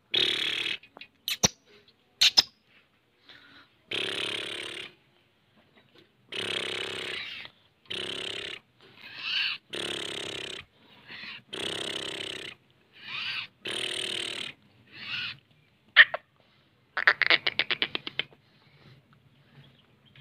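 Black francolin calling: a series of harsh, hoarse notes, each about half a second to a second long, coming about once a second in loose groups. Near the end comes a quick rattle of clicks.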